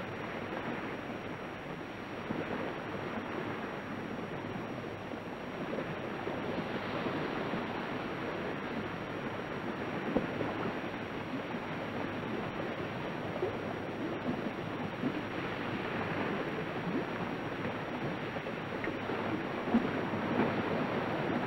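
Shallow seawater washing in over coral sand on the rising tide: a steady, even wash of small waves.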